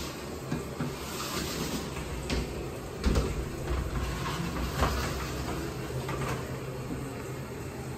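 Framed glass sliding shower door rolled back and forth along its metal track, rumbling, with knocks about three and five seconds in.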